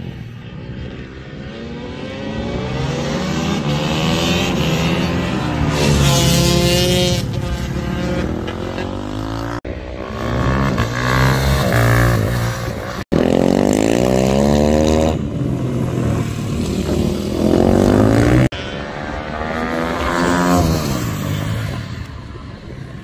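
Small supermoto-style motorcycle engines revving up and down hard as the bikes accelerate out of corners and pass by, one rise and fall after another. The sound cuts off abruptly three times between shots.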